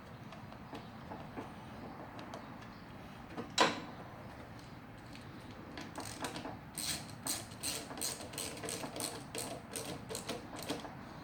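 Hands working on a small lawnmower with tools and metal parts: one sharp knock, then a run of light clicks and taps, about two or three a second, during the second half.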